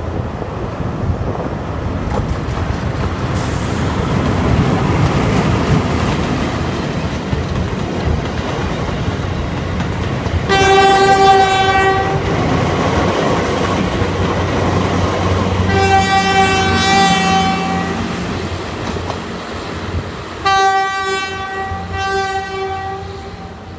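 PNR 900 class diesel locomotive and its ex-JR East 203 series coaches rolling past close by, the engine and wheels growing louder over the first ten seconds. The locomotive's horn then sounds four times on one steady note: two long blasts about ten and sixteen seconds in, and two short ones near the end.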